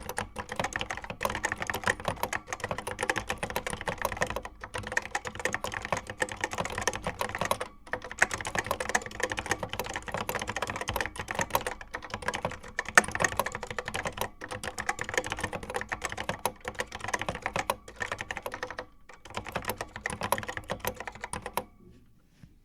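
Fast continuous typing on a vintage Apple M0110A keyboard: a dense run of key clacks with a few brief pauses, stopping shortly before the end.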